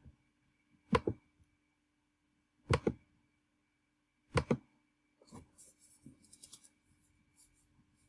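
Clicks of a computer mouse and keyboard picked up through the desk: four loud double clicks a second or two apart, then a scatter of fainter, lighter clicks in the second half.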